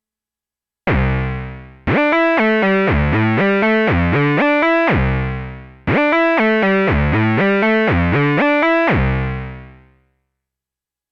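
Sequential Prophet-6 analog synthesizer playing a dry FM patch, with oscillator 2 frequency-modulating the sound through the Poly Mod section. It plays a short sequenced phrase of quick stepping notes twice, then fades out near the end.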